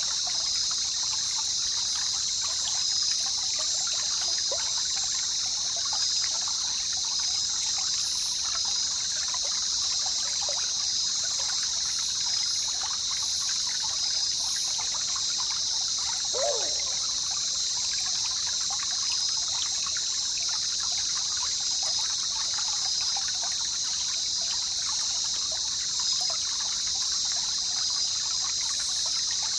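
Jungle river ambience: water trickling and babbling in many small splashes, under a loud, steady, high-pitched drone. About halfway through there is one short falling call.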